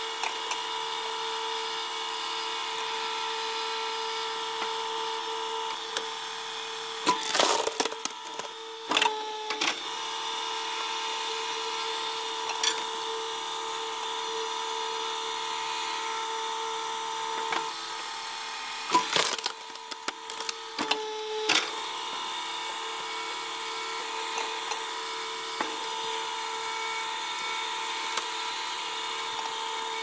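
Vertical log splitter running with a steady motor hum while its blade is driven into a large round of wood, which gives loud splintering cracks as it splits, about 7 seconds in, again near 9 seconds, and twice more around 19 and 21 seconds.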